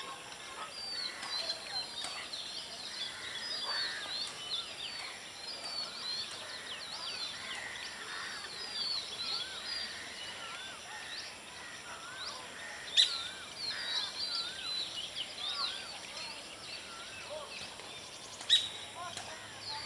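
Many small birds chirping and calling over a faint steady hiss, with two sharp clicks, one about two-thirds of the way through and one near the end.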